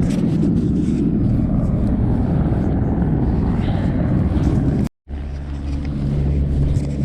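Loud low rumbling noise that cuts off abruptly about five seconds in, then gives way to a steadier low drone.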